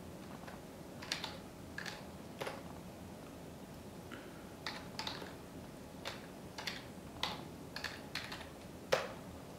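Keystrokes on a computer keyboard: about a dozen separate key presses at an unhurried, uneven pace. There is a pause about three seconds in, and the loudest press comes near the end.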